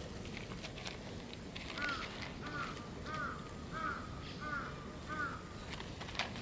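A bird calling in a steady series: six short, arched calls about two thirds of a second apart in the middle of the stretch, over faint scattered clicks and rustling.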